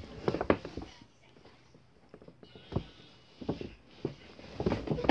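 Scattered soft knocks and rustles of someone moving and handling things close to the phone's microphone, with quiet gaps between.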